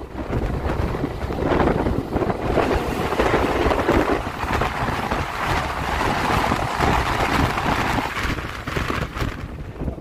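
Train running noise and wind at an open carriage door while an oncoming electric passenger train passes close alongside on the next track, a continuous rushing roar. It builds about a second in and eases off near the end as the passing train clears.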